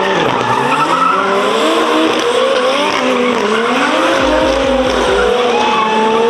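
Two drift cars sliding in tandem with tyres screeching continuously. Their engines are held at high revs, the pitch wavering up and down as the drivers work the throttle through the slides.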